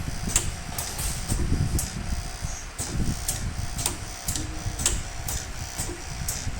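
Pneumatic connector socket strength testing machine cycling automatically, its air cylinders actuating. Sharp high clicks and short puffs come about two a second over a low rumble.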